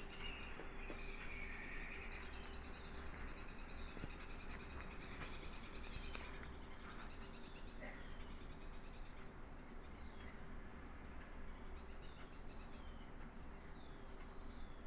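Faint outdoor ambience: small birds chirping over a low steady hum.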